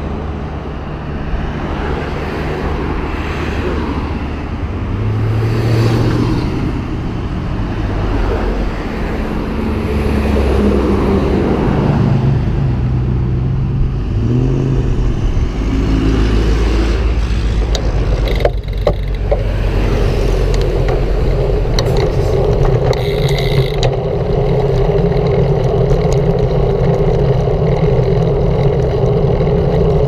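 Road traffic on a busy multi-lane road heard from a moving bicycle: cars and trucks passing close by. A steadier hum settles in during the second half.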